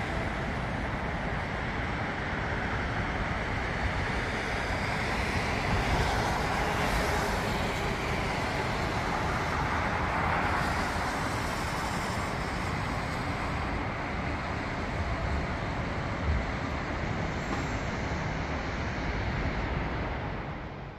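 Steady road traffic noise from cars on an elevated riverside expressway and bridge. It swells a little as vehicles pass, about six and ten seconds in.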